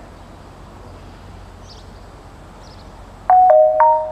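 Station public-address chime: three ringing tones in quick succession about three seconds in, the second lower and the third higher, each held and fading, the alert that comes before a platform announcement. Underneath is a steady outdoor background hum with a few faint chirps.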